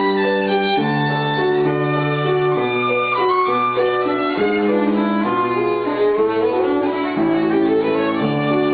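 Violin bowed in a melody of held notes, with piano accompaniment beneath it.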